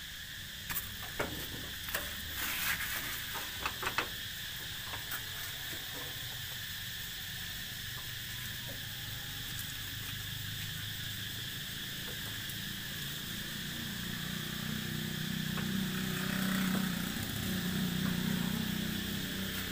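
Steady high-pitched insect chirring in rural open air, with a few sharp clicks and knocks in the first few seconds and a low rumble that swells near the end.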